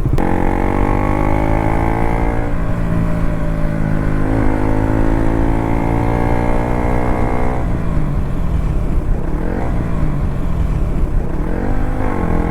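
KTM RC 200's single-cylinder engine running as the bike is ridden, its pitch holding or creeping up in each gear, with a change about two and a half seconds in and again about halfway through. The note turns uneven and wavering for a few seconds before steadying near the end.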